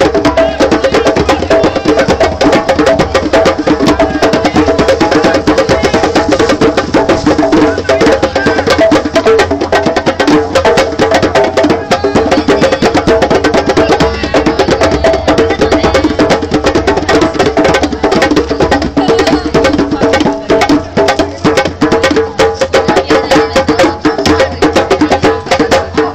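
Live hand-drum music, loud: djembes beaten in a fast, dense rhythm over a continuous low didgeridoo drone, with steady pitched tones above it.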